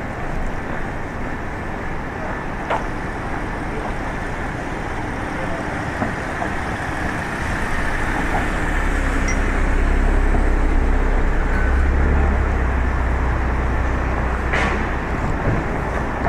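Steady city street traffic noise, with a heavy vehicle's low engine rumble building from about eight seconds in, loudest a few seconds later, then fading near the end as it passes.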